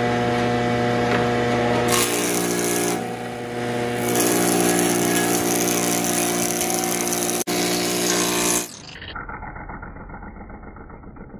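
Moulding cutter of a 3-in-1 multipurpose woodworking planer cutting a panel moulding profile into a wooden plank. The motor hums steadily, then the cutter bites into the wood about two seconds in and cuts noisily, easing briefly around three seconds. The cutting cuts off sharply near the end, leaving a much quieter sound.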